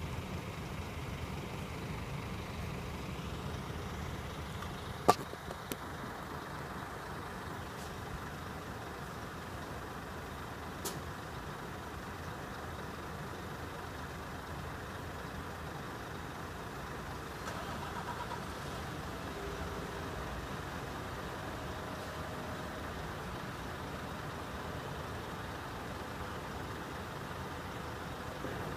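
Diesel coach engines idling while parked, a steady low rumble. A single sharp click stands out about five seconds in.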